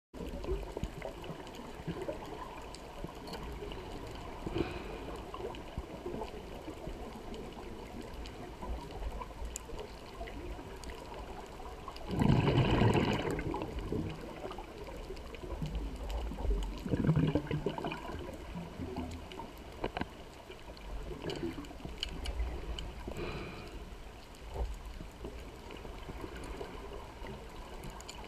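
Underwater sound heard through a camera housing: a scuba diver's exhaled bubbles rushing out in bursts every few seconds over a low steady rumble. The loudest burst comes about twelve seconds in.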